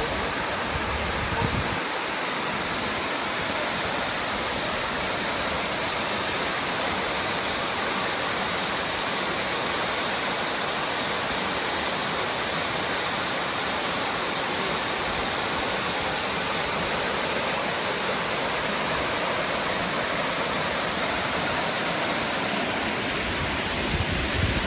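A waterfall rushing: a steady, even roar of falling water. There are brief low rumbles near the start and the end.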